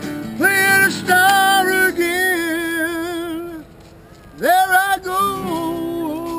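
Acoustic guitar with a man singing long wordless notes with vibrato, four or so held phrases, with a short quieter gap past the middle.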